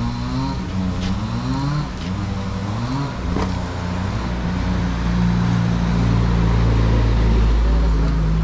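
An engine running, its pitch shifting in the first few seconds, then steadier and louder from about halfway through.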